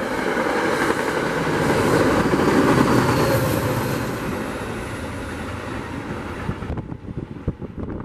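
NJ Transit diesel push-pull train of Comet coaches and a GP40PH-2B locomotive passing close by at speed. Wheel and rail rumble and diesel engine hum swell to a peak about two to three seconds in, then fade. The sound cuts off suddenly near the end to a much quieter scene with scattered ticks.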